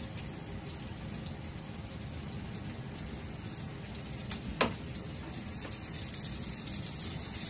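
Garlic and onion sizzling and crackling as they sauté in oil in a frying pan while being stirred with a spatula. One sharp knock about four and a half seconds in.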